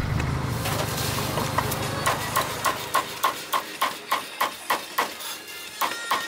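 Meat cleaver chopping crispy pork belly on a thick wooden chopping block: quick, even strokes about three to four a second, each with a short metallic ring. The chopping starts after a second or so of street background, pauses briefly about five seconds in, then picks up again.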